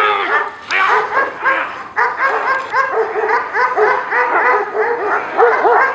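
A dog barking in a rapid, excited series of short barks, about three to four a second, with no pause.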